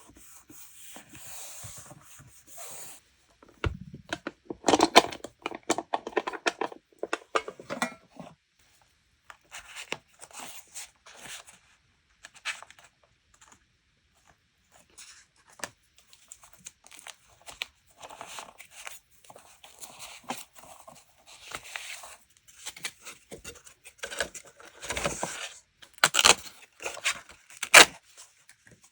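Close-miked paper and stationery handling for journal decorating: intermittent rustling, scraping and crinkling of paper, with a few sharp taps or snaps near the end.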